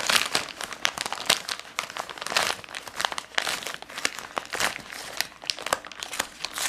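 Packaging crinkling and crackling in irregular bursts as it is handled and pulled at by hand, being worked open without a knife.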